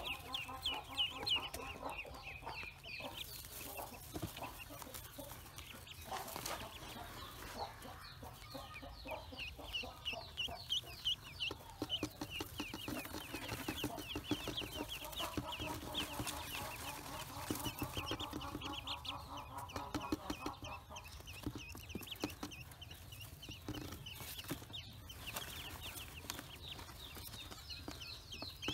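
A crowd of newly hatched domestic ducklings peeping without pause, many short high-pitched chirps overlapping.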